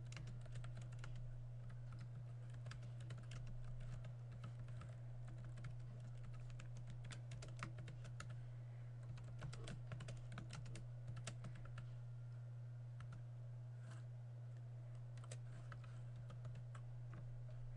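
Typing on a computer keyboard: a quick, irregular run of key clicks that thins out briefly about two-thirds of the way through, over a steady low hum.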